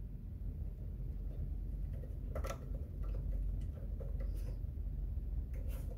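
A few faint, scattered clicks and taps from handling a benchtop DC electronic load's metal case and its plug-in plastic terminal block, over a low steady background rumble.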